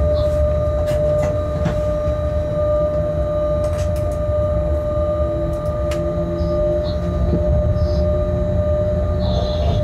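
Freight train locomotive heard from inside the cab as it rolls through a station: a steady low rumble of the running gear under a constant high whine, with a few sharp clicks as the wheels cross rail joints and points.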